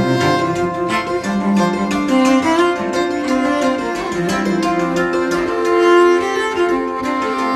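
Background music of bowed strings, violin and cello, playing held notes over a steady plucked pulse.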